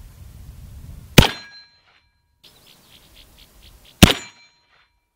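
Two shots from a Cimarron 1860 Army .44-calibre cap-and-ball revolver, about three seconds apart, each followed by a short ringing tone.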